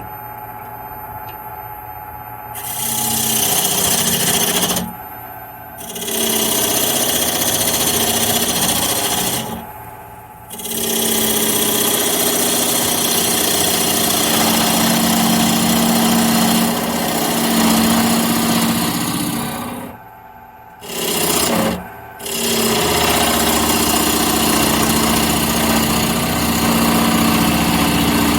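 Wood lathe running with a steady motor hum, then a turning tool cutting into the spinning wooden cup to thin its wall: long continuous scraping cuts, broken by short pauses about five and ten seconds in and twice around twenty seconds in where the tool comes off the wood.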